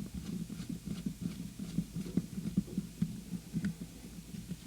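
Handling noise from the bodypack receiver being reassembled: an irregular run of soft low thumps and knocks, several a second, with a few faint clicks as the plastic and metal parts are pressed and fitted together.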